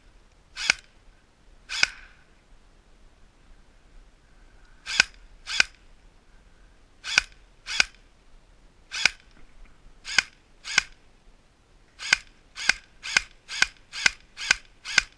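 Airsoft gun firing single shots close by, about sixteen sharp cracks. They come in spaced pairs at first, then faster, about two a second, near the end.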